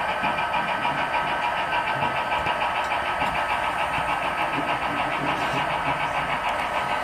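Model train running on the layout, its wheels setting up a fast, even clicking with a steady high squeak that comes from one or two of the cars.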